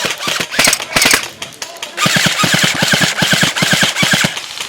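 Airsoft electric gun firing on full auto: scattered shots at first, then a sustained burst of rapid, evenly spaced shots lasting a little over two seconds.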